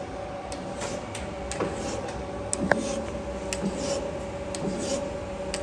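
Freeport SGS-1632AHD surface grinder running its automatic cycle: a steady hum with scattered clicks and ticks, one sharper click about halfway through.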